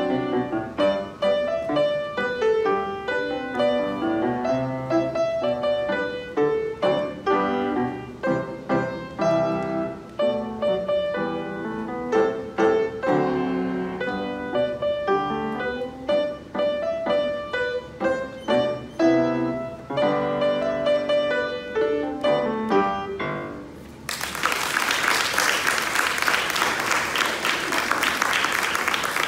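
Grand piano played with many quick struck notes, ending about 24 seconds in. Audience applause follows through to the end.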